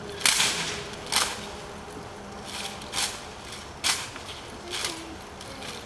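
Rifles of a Marine silent drill platoon, M1 Garands, slapped and snapped through drill movements in unison: five sharp claps with a short echo after each, most about a second apart, and a few softer ones between.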